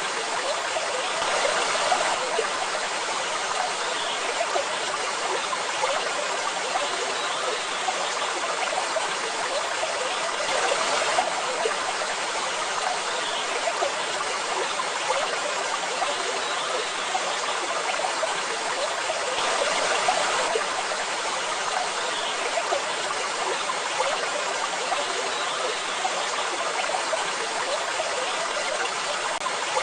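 Waterfall: a steady rush of falling water that swells slightly about every nine seconds.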